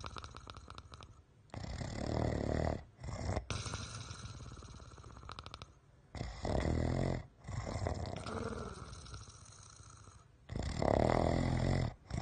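Heavy snoring: about four louder snores, roughly every two to three seconds, with quieter breathing between them.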